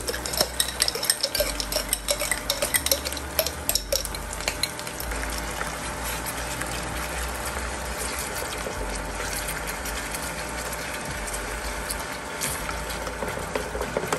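Ground meat frying in a pan with a steady sizzle. For the first few seconds a metal spoon clinks and scrapes as sun-dried tomato pesto is spooned in. After that a wooden spatula stirs through the sizzling sauce.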